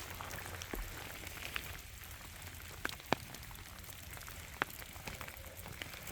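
Rain falling in a forest: a faint steady hiss with scattered single drops landing close by, a few sharp ticks spread through it.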